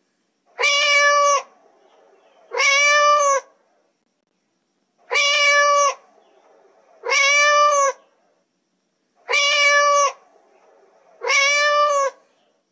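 Domestic cat meowing six times in three pairs, the pairs about two seconds apart. Each meow is a little under a second long with a steady pitch, and all six have the same shape.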